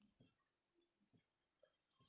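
Near silence, with a few very faint ticks.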